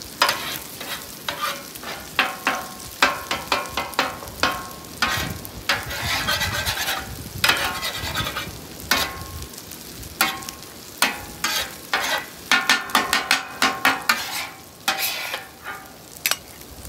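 Steel spatula scraping and tapping on a flat-top griddle while scrambling eggs, the eggs sizzling in the hot fat. The scrapes come in quick irregular runs over a steady sizzle.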